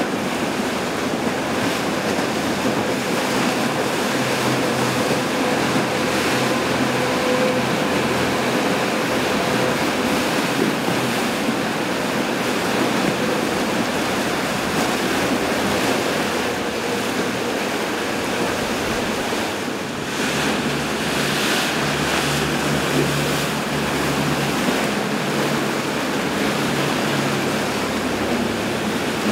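Rough, churning canal water rushing and breaking in standing waves, with the outboard engines of passing motorboats running low under it.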